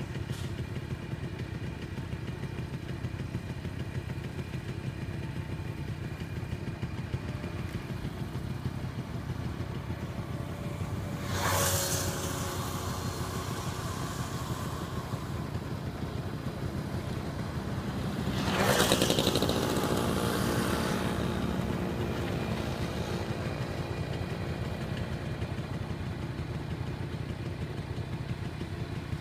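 Road vehicles passing by twice over a steady low rumble, about 11 seconds in and again about 19 seconds in, each falling in pitch as it goes past; the second pass is louder and lasts longer.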